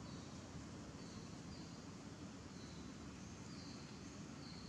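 Outdoor ambience: a steady low rumble with a short, high chirp from a small bird or insect repeating about once a second.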